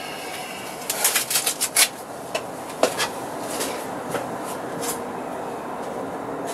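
Blue nitrile gloves being pulled off: a quick run of crinkly snaps about a second in, then a few scattered single clicks over a steady background hiss.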